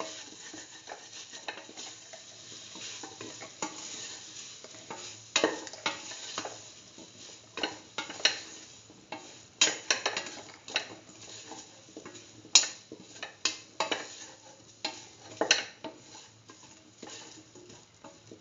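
A spoon stirring chunks of potato and bell pepper in mustard paste in a steel pot, scraping and clinking against the metal in irregular strokes over a faint sizzle from the hot pan. The strokes thin out toward the end.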